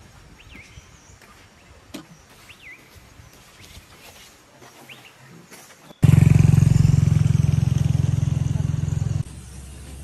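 Faint bird chirps over a quiet forest background. About six seconds in, a loud, steady low rumble breaks in suddenly. It falls away abruptly about three seconds later to a softer low hum.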